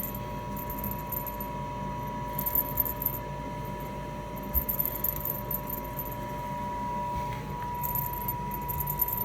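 Short, scattered bursts of jingling and rattling from a cat's string toy being batted and tugged, over a steady hum from a household appliance.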